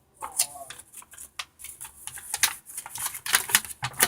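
A large folded card-game playmat being unfolded and handled: rapid, irregular crackling and rustling, busiest in the second half.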